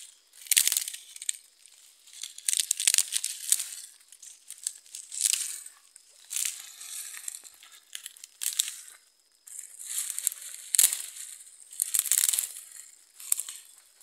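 Dry coconut-palm fronds rustling as they are grabbed, pulled and torn off the tree by hand, in a series of irregular crinkly bursts.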